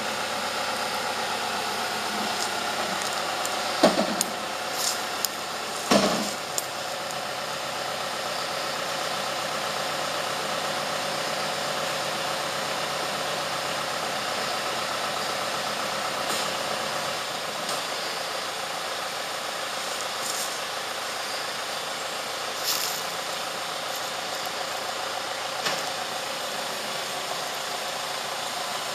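Farm tractor engine running steadily as it pulls a loaded log forwarder wagon, with two loud knocks about four and six seconds in and a few lighter clicks later.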